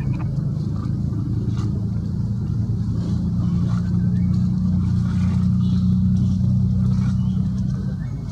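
A motor engine running, a steady low hum that grows a little louder in the middle and eases off near the end.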